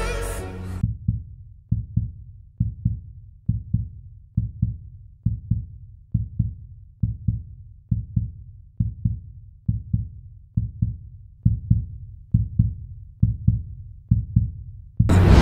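Heartbeat sound effect: pairs of low thumps, about one pair a second, left alone after the song cuts out about a second in. Loud music comes back in just before the end.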